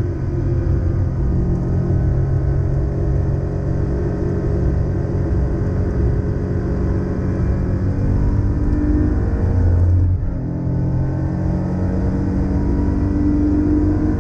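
Air-cooled flat-six engine of a 1987 Porsche 911 Carrera 3.2 running hard under load, heard inside the cabin at track speed. About ten seconds in it drops off briefly, as at a gear change, then pulls again with rising pitch as the car accelerates.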